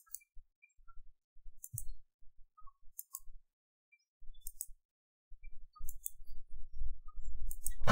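Computer mouse button clicks, short and sharp, about one every second and a half, over a faint low rumble that grows louder near the end.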